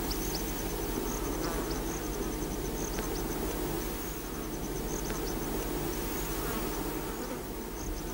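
Steady insect buzzing, with a high, rapid chirping that comes and goes.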